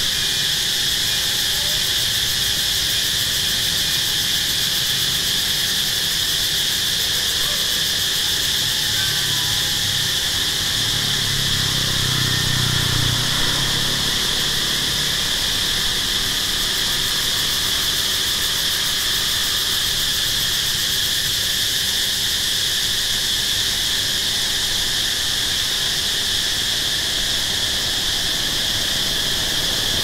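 Steady insect chorus: a continuous high-pitched shrill drone from many insects in the trees. A faint low rumble swells and fades around the middle.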